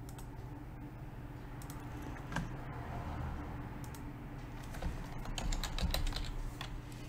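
Typing on a computer keyboard: a few scattered clicks, then a quick run of keystrokes about five seconds in, over a low steady hum.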